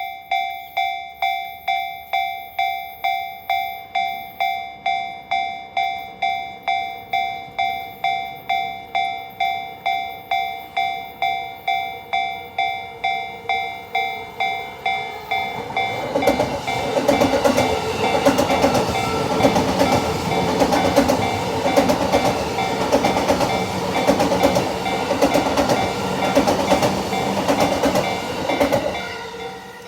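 Japanese level-crossing alarm bell ringing with a steady chime about twice a second. About sixteen seconds in, a Yamanote Line train runs over the crossing, its wheels clacking and rumbling louder than the bell, and the train noise fades just before the end.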